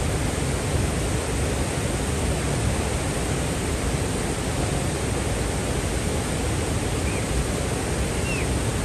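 A fast mountain river rushing steadily.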